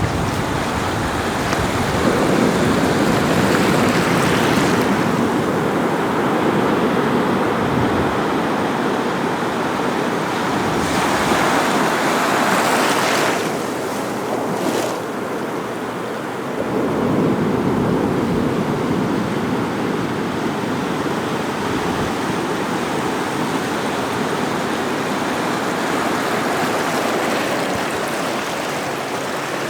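Ocean surf breaking and washing up a sandy beach in a steady noise that swells and ebbs, with one louder, hissier wave washing in around the middle.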